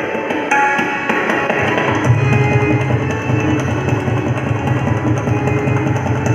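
Tabla solo in teental: dense, rapid drum strokes over a harmonium playing a repeating melody, with a deep bass-drum resonance coming in strongly about two seconds in.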